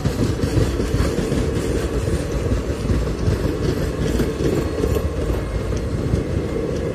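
Indian Railways passenger coaches rolling past, their wheels making a steady rumble with some clatter on the rails.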